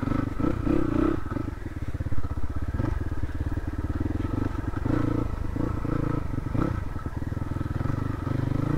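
Crossfire RM250 dirt bike engine running at low revs with a rapid even pulse, the throttle eased on and off a little as it rides along a rough trail.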